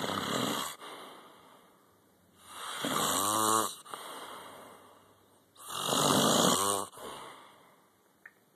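A sleeping man snoring: three loud snores about three seconds apart, the first already under way at the start, each followed by a shorter, quieter breath.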